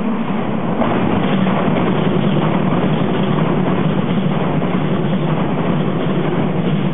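Six-car JR West 227 series electric train passing close by at speed: a loud, steady rumble of wheels on rails that swells as the train draws level about a second in.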